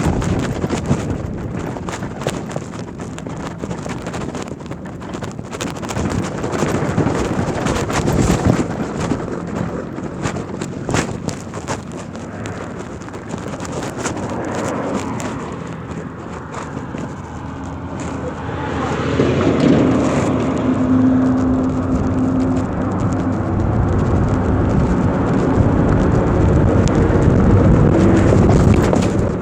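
Wind buffeting the microphone with tyre noise while riding an electric motorbike. About two-thirds of the way in a steady hum joins, and near the end a whine rises in pitch.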